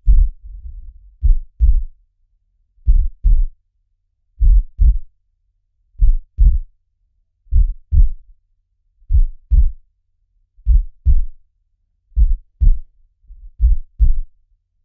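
Slow heartbeat, each beat a deep double 'lub-dub' thump, coming steadily about once every second and a half. A faint low whoosh follows the first beat.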